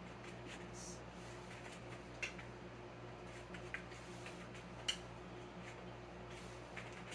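Faint, scattered clicks and taps from a dog moving about and picking treats off a hard floor, about one every second or so, over a steady low electrical hum.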